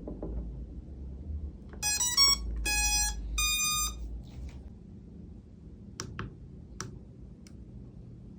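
Toy drone's power-on beeps: a quick run of stepped electronic notes followed by two longer steady tones, about two seconds in. A few light clicks follow near the end.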